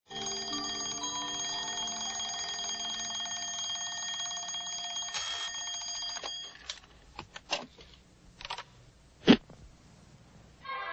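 Bell of a mechanical alarm clock ringing, a continuous rapid ring that stops about six and a half seconds in. A few soft knocks and rustles follow, then one sharp, loud knock about nine seconds in.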